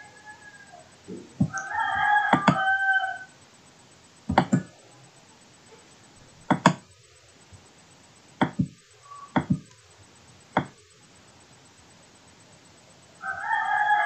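A drawn-out, pitched animal call lasting about two seconds, heard twice: once a little over a second in and again near the end. Between the calls come five sharp clicks.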